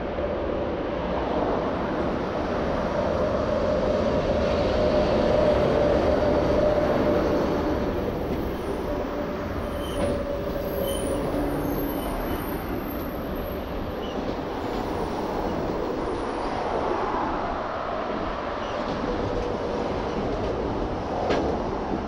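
EP1P electric locomotive hauling a passenger train past at close range, then its coaches rolling by with a steady rumble of wheels on rails. The sound is loudest as the locomotive goes by in the first third, with a held tone over the first several seconds and a couple of sharp clicks from the wheels later on.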